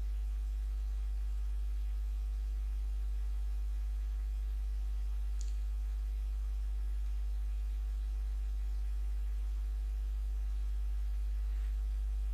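Steady low electrical mains hum, a constant drone with overtones, with a faint click about five and a half seconds in.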